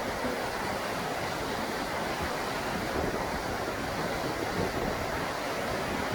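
Steady rush of falling water from a waterfall, a dense even roar across all pitches that cuts in suddenly at the start.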